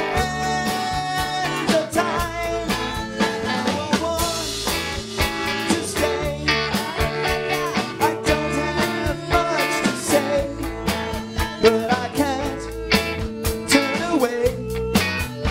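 Live rock band playing through a PA: electric guitars, electric bass and drum kit with a steady beat, with vocals.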